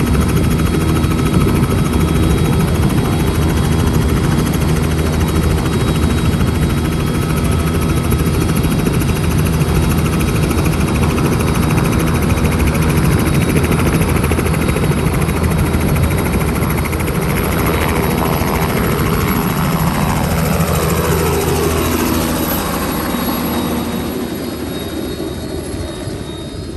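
Small two-bladed helicopter running at full rotor speed on the pad, then lifting off and flying away. Its steady rotor and engine sound slides down in pitch about two-thirds of the way through and fades over the last few seconds.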